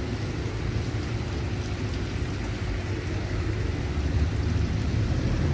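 Steady low rumble of outdoor ambient noise, a little louder in the last second or so.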